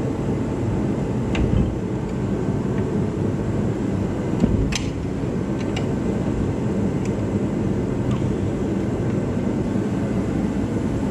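Steady rushing machine noise with a low rumble, and a few light metallic clicks, spaced a couple of seconds apart, as a wrench works at the exhaust muffler bolts of a Honda GX160 engine.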